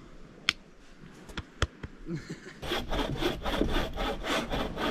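A hand saw cutting a dry driftwood log in quick, even back-and-forth strokes, starting about two and a half seconds in. It is preceded by a few separate sharp knocks.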